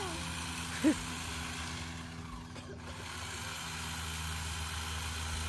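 A small motor running steadily with an even low hum. A short, sharp pitched squeak about a second in is the loudest moment.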